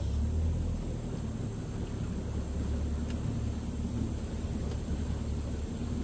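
Fishing boat's outboard motor running under way, a steady low rumble.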